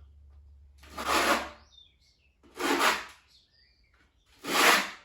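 Steel trowel scraping cement-based tile adhesive across a wall, three long strokes about a second and a half apart.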